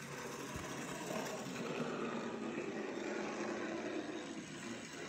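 N scale model train running on the layout's track: a steady whirr of its small motor and wheels on the rails.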